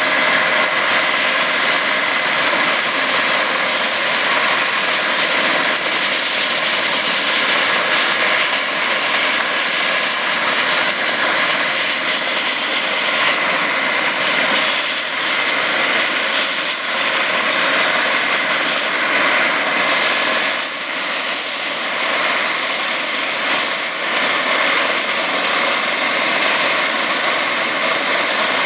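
Eurocopter EC135 helicopter running on the ground with its main rotor turning: a steady, loud turbine-and-rotor noise, with a thin high whine that rises slowly in pitch over the first half as the engines spool up.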